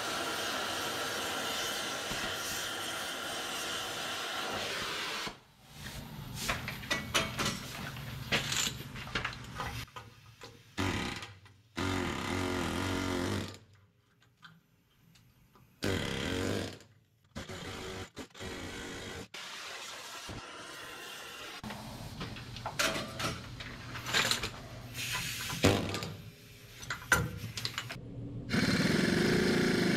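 A cutting torch hisses steadily for about five seconds as it cuts through a seized suspension bolt. Then come intermittent runs of a pneumatic impact wrench on the bolts, with metallic clanks and short pauses, and a louder steady run near the end.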